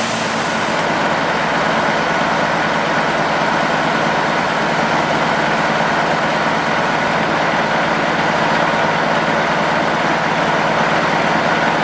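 Pavement cold milling machine at work: its heavy diesel engine and the milling drum grinding up asphalt make a loud, steady din with a few held tones.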